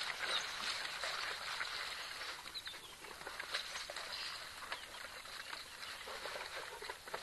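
A pack of African wild dogs feeding on an impala carcass: scattered short, high chirping calls over a busy patter of small clicks and scuffles as they tear at the kill.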